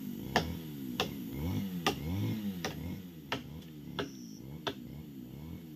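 Sharp clicks repeating steadily, about three every two seconds, over a low wavering hum.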